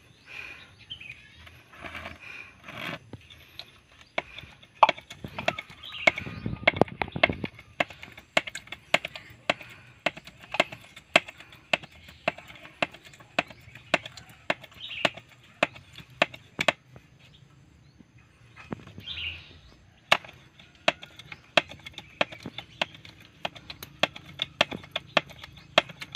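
Grease gun being pumped stroke by stroke, a sharp click about twice a second, forcing grease into a grease nipple. The clicking stops for a few seconds about two-thirds of the way through, then resumes.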